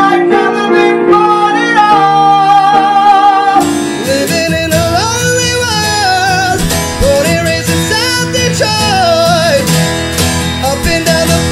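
Male tenor voice singing high, first holding a Bb4, then after an abrupt cut singing a melody around B4 over a strummed acoustic guitar.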